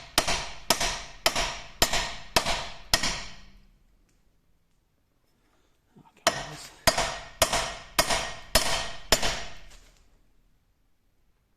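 Hammer striking a round tube to drive a new lower ball joint up into a Ford Transit's wishbone: two runs of about six sharp, ringing taps, roughly two a second, with a pause of about three seconds between.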